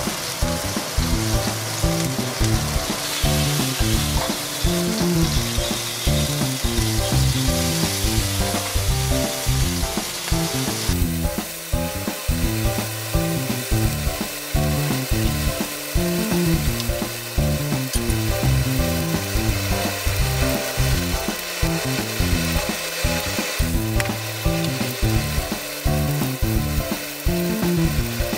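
Gyoza frying in an enameled cast-iron frying pan: a loud, busy sizzle while the last of the steaming water boils off, which drops to a quieter, thinner sizzle about ten seconds in as the pan runs dry and the dumplings start to brown in the oil.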